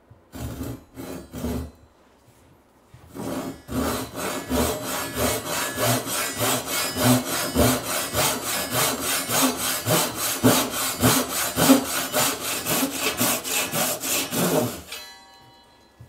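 Japanese pull saw cutting down into the end grain of an upright wooden board. Three short starting strokes, then after a pause a steady run of quick strokes, about three a second, that stops near the end.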